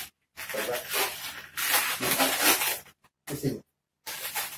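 Long latex modelling balloons rubbing and squeaking against the hands as they are twisted and gripped into shape. The rubbing is broken three times by a brief dead silence.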